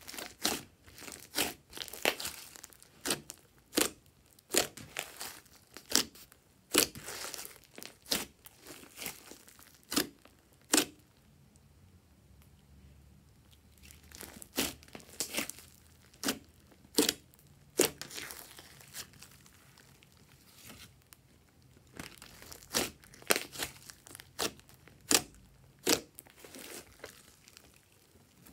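Thick green slime being squeezed and kneaded by hand, giving irregular clusters of sharp wet pops and crackles as air pockets in it burst. There are short quieter pauses about halfway through and about two thirds of the way through.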